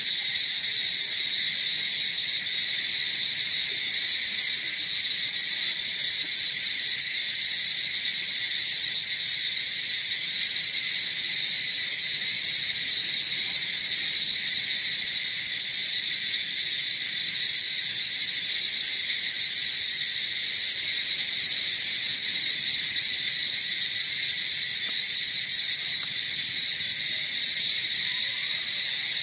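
A steady insect chorus: one continuous high buzz that holds without a break.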